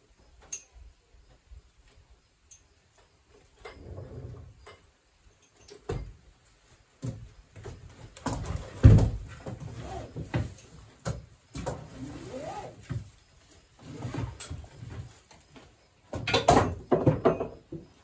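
Wooden sawmill slabs being handled on a wooden bench: irregular clunks, knocks and scraping of wood on wood, the heaviest knock about nine seconds in and a quick clatter near the end.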